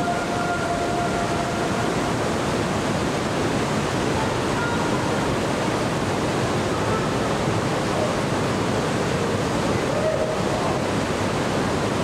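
Steady, loud rush of the Trümmelbach Falls, an underground glacier-fed waterfall pouring through the rock gorge. Faint voices come through now and then.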